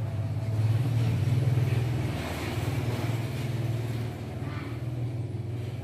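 Low, steady engine rumble of a motor vehicle running nearby, loudest from about half a second to two and a half seconds in, then easing a little.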